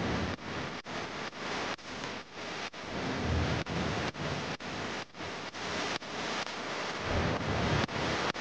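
Wind rushing and buffeting over the microphone of a camera on a fast-moving e-bike, with gusty low swells, broken by brief regular dropouts a few times a second.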